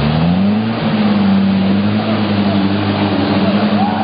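Vehicle engine running under load, its pitch rising in the first half second as it accelerates, then holding steady.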